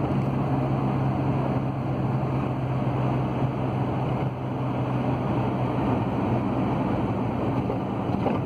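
Ford Transit van's diesel engine and road noise heard from inside the cab while driving, a steady low hum.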